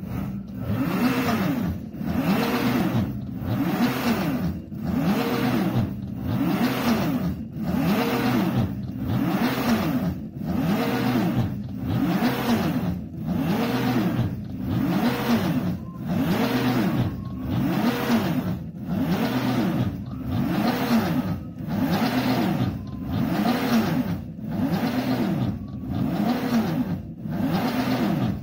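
Cutting Edge DCS 1500 flatbed sample cutter running a cutting job on brown board. Its gantry and tool-head motors whir up and down in pitch in even strokes about once a second, as the head moves across the sheet cutting each slot.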